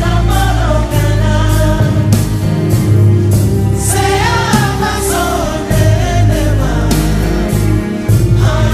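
A song with a sung vocal over heavy bass and a steady drum beat.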